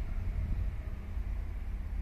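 Diesel locomotive engine idling out of sight: a low steady rumble.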